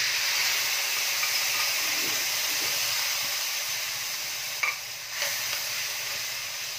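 Spanish sardines and their oil hitting hot oil and frying garlic in a wok, sizzling loudly and slowly dying down, with a couple of light knocks a little past the middle.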